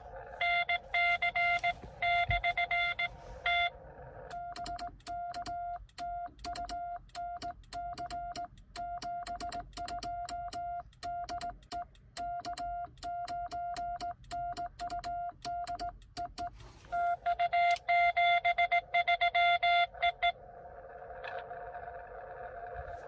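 Morse code from a Xiegu X6100 transceiver: a single steady tone keyed on and off in dots and dashes. For about the first four seconds and again from about 17 to 20 s, a louder incoming CW signal is heard. In between, the operator sends on a home-brew cootie sideswiper key, with sharp contact clicks at each element under the weaker sidetone. Near the end the tone gives way to the receiver's hiss.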